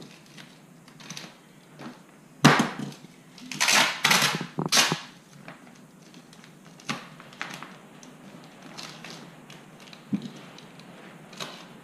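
Knocks and scrapes from hands working cable at a wood-framed stud wall: a loud knock about two and a half seconds in, then a cluster of longer scrapes and knocks around four seconds, and a few scattered clicks after.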